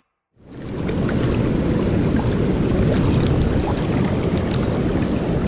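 Steady rushing noise of wind buffeting the microphone over flowing river water, fading in after a brief silence at the start.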